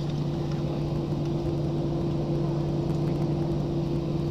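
Airliner cabin noise on the ground before takeoff: the jet engines and cabin air system running at a steady level, a constant two-note hum over a broad rumble.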